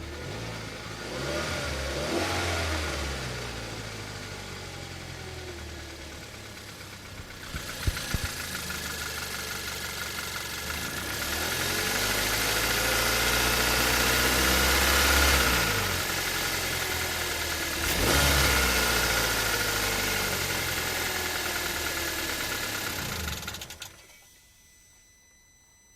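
Hyundai ix35 engine running and being revved: a short rev about two seconds in, a slow climb in revs that peaks about halfway through and falls back, and another quick rev a few seconds later. The engine is switched off near the end.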